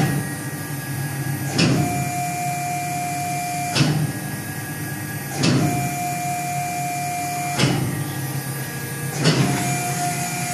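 Tormach PCNC 1100 mill's axis stepper motors driving the slides through a lathe turning program at about 40 inches per minute, cutting air with no tool fitted. A steady whine during the moves, with a knock about every two seconds as each pass ends and the axes change direction.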